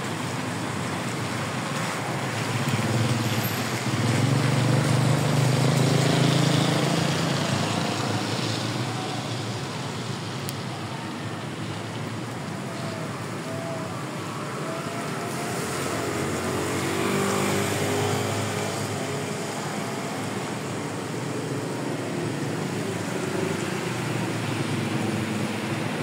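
Street traffic going by. A passing vehicle's rumble is loudest about four to seven seconds in, with another, smaller swell later on.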